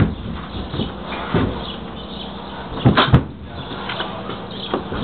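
A few hollow knocks and thumps inside a livestock trailer while an animal is loaded, the loudest pair about three seconds in.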